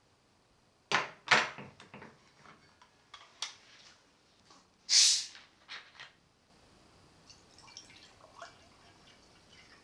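Kitchen handling sounds: a quick run of sharp knocks and clacks of cookware and utensils, then a short hiss about five seconds in. A faint steady hiss with light ticks follows.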